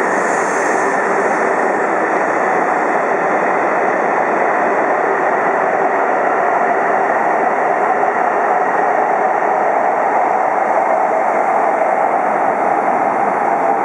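E2 series Shinkansen departing and gathering speed, its cars passing close by with a steady rush of wheel and air noise. A whine becomes stronger near the end.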